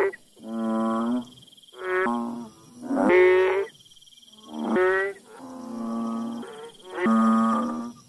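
Banded bullfrog (Kaloula) calling: a steady series of low, droning calls, each about half a second to a second long, coming roughly once a second, with a fainter call about six seconds in.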